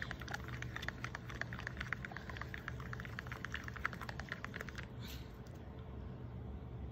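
Acrylic paint being stirred in a plastic cup: a stir stick ticks rapidly against the cup, stopping about four and a half seconds in, followed by a short soft brushing sound.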